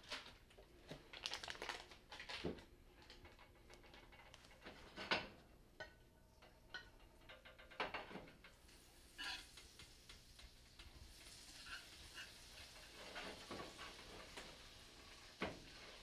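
Faint kitchen handling sounds: scattered light knocks and clinks of a frying pan and utensil on an electric stove, then, about halfway through, a faint steady sizzle as fat heats in the pan.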